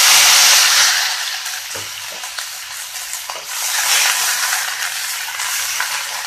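Onion paste hitting hot oil in a kadai and sizzling loudly, strongest in the first second, then frying on steadily while a wooden spatula stirs it, with short clicks and scrapes against the pan.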